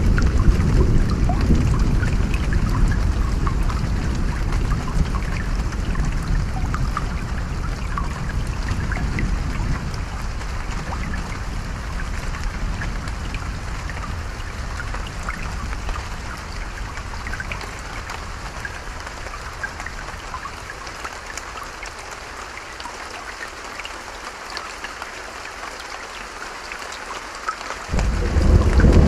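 Rain and a running stream, with many small drops crackling throughout, under a long low thunder rumble that slowly fades over the first twenty seconds. A fresh clap of thunder breaks in loudly about a second before the end.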